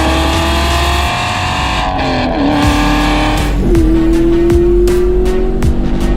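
Chevrolet Camaro SS 1LE's 6.2-litre LT1 V8, fitted with aftermarket headers, accelerating hard. Its note climbs in pitch, drops briefly about two and a half seconds in as it shifts up, then climbs again.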